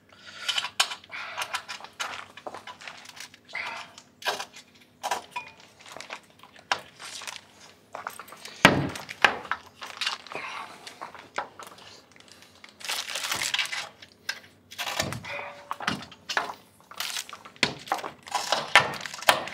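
Cable handling on the back of a solar panel: PV leads and small plastic cable clips tapping, clicking and rustling against the panel's frame and backsheet. Irregular clicks and knocks, with a louder knock about nine seconds in.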